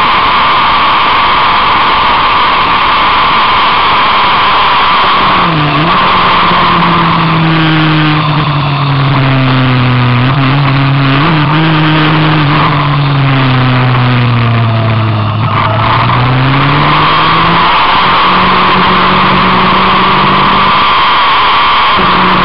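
On-board sound of a vehicle lapping a race circuit: a loud, steady rushing noise, with an engine note that dips and recovers about five seconds in, falls slowly for a few seconds and then climbs again around sixteen seconds in.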